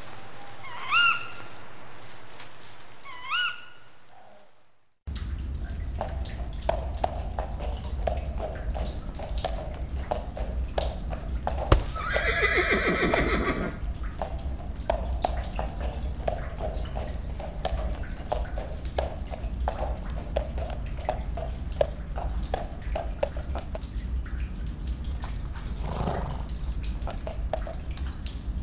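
Horse whinnying once, a call of about a second and a half that falls in pitch, over cave ambience of water dripping and a steady low rumble. Before it, a rain-like hiss with two short rising calls cuts off abruptly about five seconds in.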